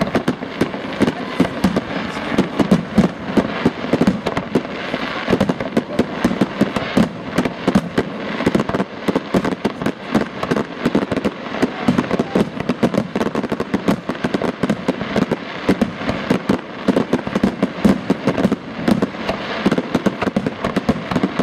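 Professional aerial firework display, shells bursting in rapid succession: a dense, unbroken stream of sharp bangs, several a second.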